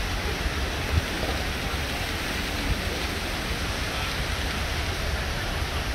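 Steady rushing outdoor ambience of a city square, with a deep rumble underneath and a brief thump about a second in.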